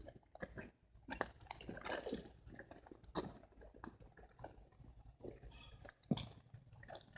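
A person biting and chewing snake meat: irregular, crackling clicks and crunches, with one sharper snap a little after six seconds.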